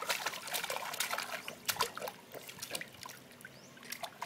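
Swimming-pool water splashing as a baby slaps it with his hands: a run of quick, irregular splashes for the first two to three seconds, then a few scattered ones.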